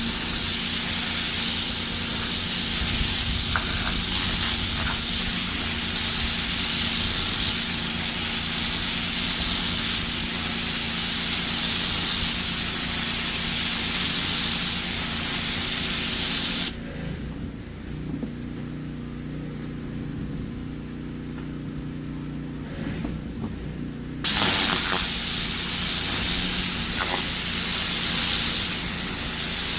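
Pressure washer spraying water onto concrete: a loud, steady hiss over the machine's steady motor hum. About seventeen seconds in the spray stops for some seven seconds, leaving only the motor running, then starts again.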